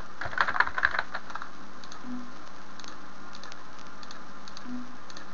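Computer keyboard typing: a quick run of keystrokes in the first second and a half, then a few faint clicks over a steady hiss.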